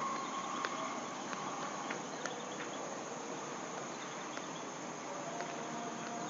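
Steady chorus of insects chirring, with a few faint, scattered clicks.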